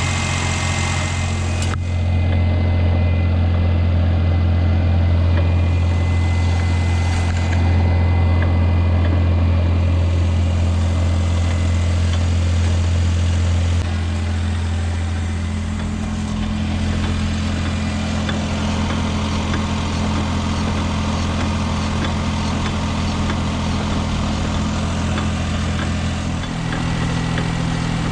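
Daihatsu Esse's small three-cylinder engine running at a steady pitch, its drone stepping up and down in level a few times.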